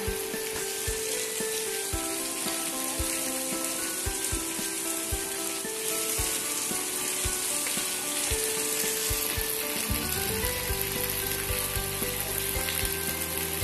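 Steady hiss of heavy monsoon rain under background music with held melodic notes and a regular low beat; the bass fills out about ten seconds in.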